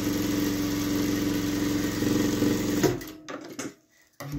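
JUITA industrial sewing machine running steadily at speed, stitching a fabric strip onto a patchwork block, then stopping about three seconds in. A few short clicks and rustles follow as the work is pulled from under the foot.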